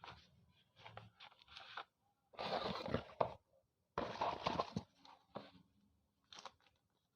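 Slate pencils being bitten and chewed: two loud spells of crunching, each almost a second long, with smaller crackles and clicks around them.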